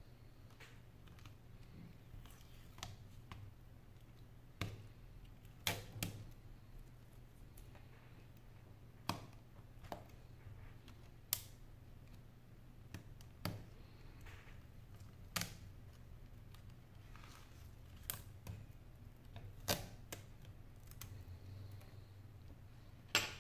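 About a dozen sharp, unevenly spaced clicks and taps, one every second or two, as a thin metal pick and fingertips work along the metal midframe of a disassembled Samsung SM-P905 (Galaxy Note Pro 12.2) tablet. A low steady hum sits underneath.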